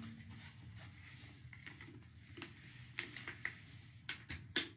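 Quiet room tone with a steady low hum and a few small clicks, which come closer together near the end.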